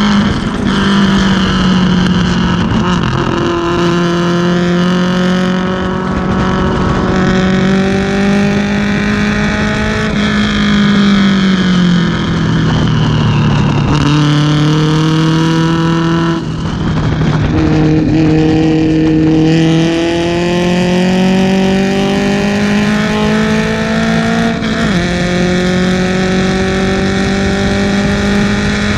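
1970 BMW 2002 race car's four-cylinder engine running hard at racing speed, its pitch climbing slowly and then dropping several times.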